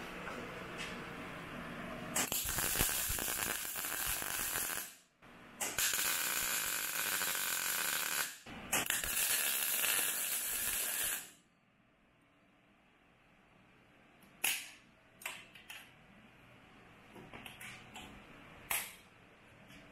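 MIG welder laying three short tack welds, each a steady hiss of about three seconds that cuts off sharply; the first starts about two seconds in. After the third weld come a few light clicks and knocks.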